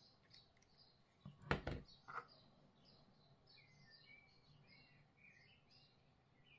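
Near silence, broken by two light knocks about one and a half and two seconds in. After them come faint, high bird chirps in the background.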